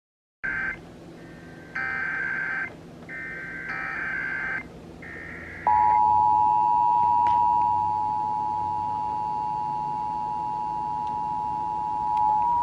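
Emergency Alert System tones broadcast on FM radio: a series of short, harsh digital screeches (the SAME header data), then, about five and a half seconds in, the steady two-tone EAS attention signal, a loud held chord that runs on. Together they open a Required Monthly Test of the alert system.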